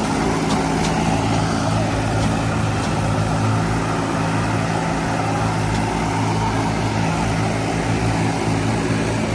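Tractor diesel engine running steadily at a constant speed, with an even, unchanging drone.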